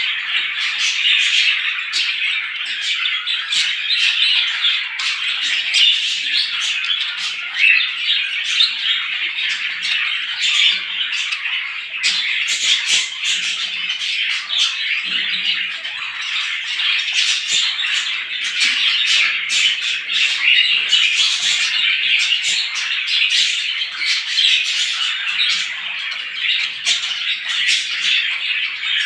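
A dense chorus of many small birds chirping and chattering at once, without a break.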